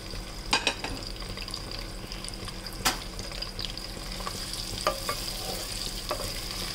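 Chopped capsicum, onion and green chillies sizzling in hot oil in a pan, with a steady frying hiss. A spatula stirring them knocks against the pan about four times.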